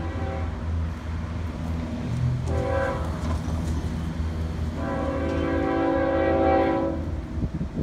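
Locomotive air horn sounding the end of the grade-crossing signal as the train approaches: a blast ending just after the start, a short blast about two and a half seconds in, then a long blast from about five to seven seconds. A steady low rumble runs underneath.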